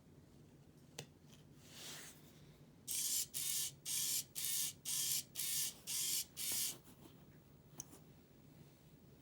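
Small hobby servo motor turning the 3D-printed skull's head, eight short whirs in quick succession, about two a second, each rising and falling in pitch as the motor speeds up and stops. A single click comes just before.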